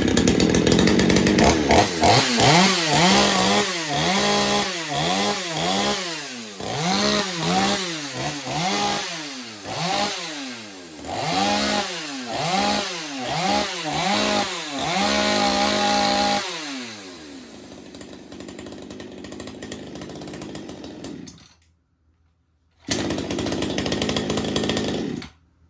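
Ported 42cc Black and Decker chainsaw's two-stroke engine, freshly tuned, held at full throttle, then blipped over and over, revving up and falling back about once a second. It drops to a lower steady idle after about sixteen seconds.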